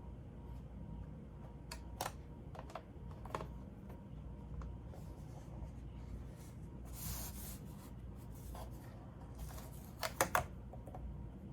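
Scattered small clicks and taps of laptop case parts being handled and fitted back into place, with a brief scrape about seven seconds in and a quick cluster of clicks near the end, over a low steady hum.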